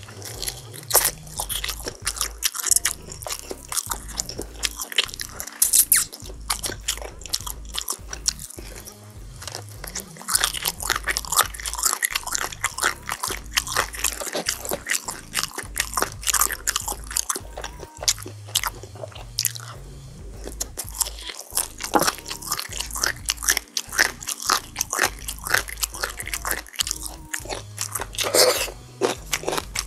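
Close-miked eating: repeated crunchy bites and chewing of crispy chili-pepper oven-roasted chicken.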